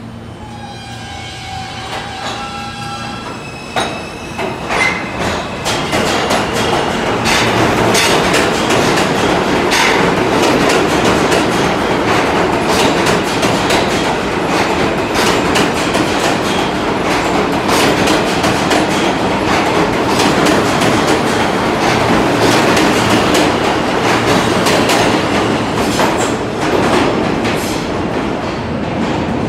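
R160A-1 subway train running along the station track. A steady whine is heard for the first few seconds, then the noise grows loud and stays loud as the cars pass, with the wheels clattering over the rail joints, before easing a little near the end.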